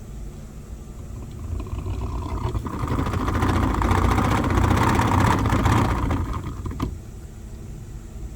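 2016 Toyota Sienna's HVAC blower motor running with a loud, fast rattling whir. It grows louder over the first few seconds and drops back about six to seven seconds in. The noise comes from a failing blower motor, which the owner replaces.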